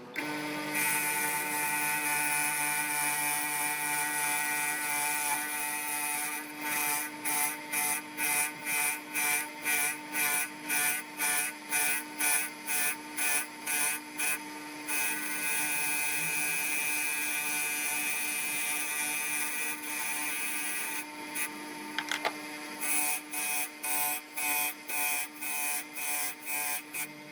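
An electric power tool's motor running with a steady whine, its sound pulsing about twice a second for long stretches.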